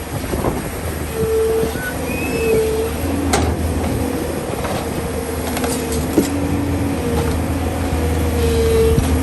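Hydraulic excavator's diesel engine running steadily under load, with short repeated higher tones from the hydraulics and a couple of sharp knocks from the working bucket.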